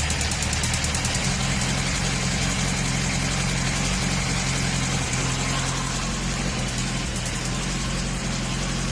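Honda CBR1000RR (SC57) inline-four engine running steadily at low revs, its note stepping up slightly just after the start. The engine is hot and below 3000 rpm, where it makes an abnormal mechanical noise that the owner suspects could be an exhaust manifold gasket, the valves or a connecting rod.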